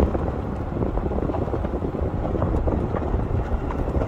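Car rolling along a gravel road, tyres crunching with many small crackles, under steady wind rushing over the microphone at the open window.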